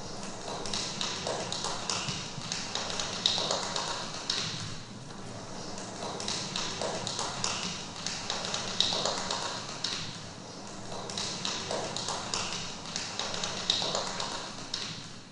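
Dense, irregular tapping and clicking from the dance piece's sound score, coming in waves with louder clicks every second or so, over a faint steady hum; it cuts off abruptly near the end.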